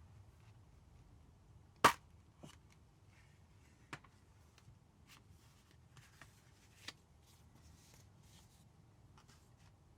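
Metal steelbook disc case being handled and opened: one sharp click about two seconds in, then a few lighter clicks and taps with soft rustling.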